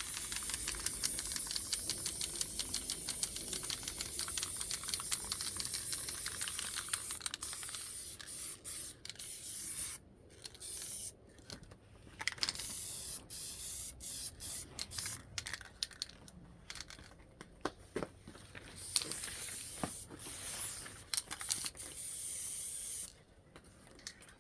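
Aerosol spray paint can hissing: a steady spray for the first several seconds, then a string of short bursts with gaps between them, stopping shortly before the end.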